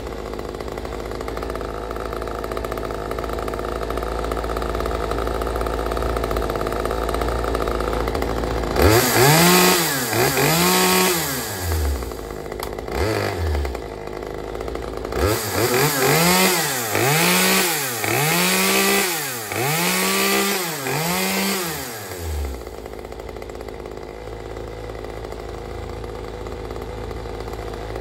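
Red Max GZ360 two-stroke chainsaw idling, then revved up and down in a string of short throttle blips from about nine seconds in: two revs, a brief blip, then a run of about six revs before it drops back to idle.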